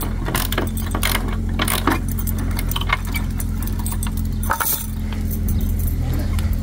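Metal swing chain rattling and clinking as it is moved, the links chinking in scattered bursts, the loudest cluster a little past the middle, over a steady low hum.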